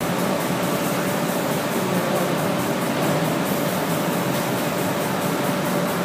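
Giardina GS25 automatic spraying machine running in reciprocating mode while coating MDF. Its spray guns and booth air give a steady hiss with a quick, even pulsing, over a steady machine hum.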